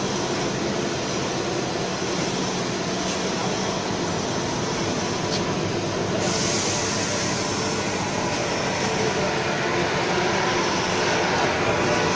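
Nut roasting machine and its cooling table running: a steady mechanical drone with a low hum. About halfway through, a rushing hiss from the cooling table's blower fan joins in and stays.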